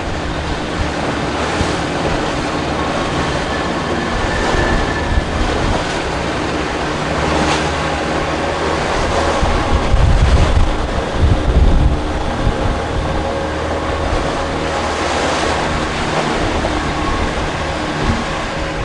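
Boat under way on open water: wind buffets the microphone over rushing water and a faint steady engine hum. The wind rumble gets louder about ten seconds in, then eases.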